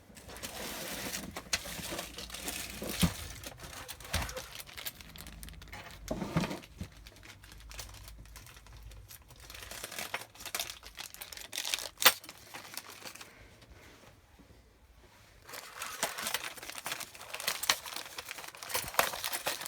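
Plastic packaging crinkling and rustling with scattered knocks and clicks as parts and tools are rummaged through, with one sharp click about twelve seconds in and a short quieter spell after it before the rustling picks up again.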